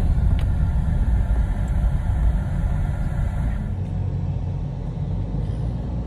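Steady low rumble of a Toyota car's engine and tyres heard inside the cabin while driving; the higher hiss thins out a little before four seconds in.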